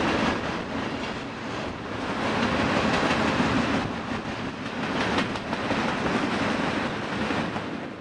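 Freight train's tank cars rolling past. Steel wheels rumble and clack on the rails, swelling and easing as each set of wheels goes by.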